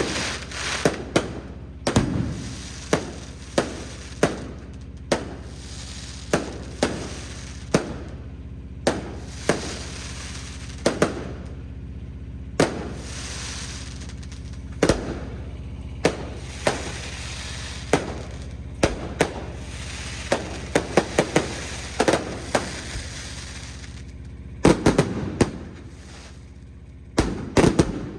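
Fireworks display: a string of sharp bangs from bursting shells, irregular at about one to two a second, with crackling stretches in between and a quick run of bangs near the end.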